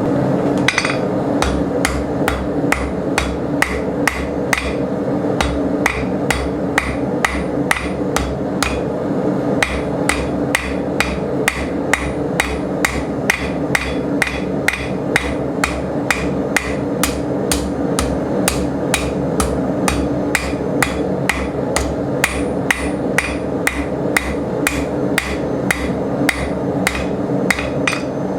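Blacksmith's hammer striking steel on an anvil in a fast, even rhythm of about three blows a second, over a steady hum.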